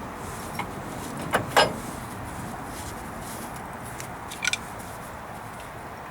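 Sharp metal clanks from the front axle shaft and its broken U-joint being worked loose: two close together about one and a half seconds in, the second the loudest, and another near four and a half seconds. Under them the truck's engine runs at a steady idle.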